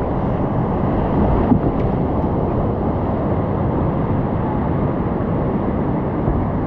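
Whitewater rapid rushing steadily around a kayak: a loud, continuous wash of churning, foaming water close to the boat.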